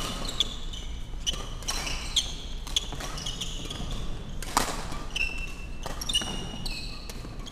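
Badminton rally: sharp racket strikes on the shuttlecock every second or so, mixed with short high-pitched squeaks of court shoes on the sports-hall floor, in a large echoing hall.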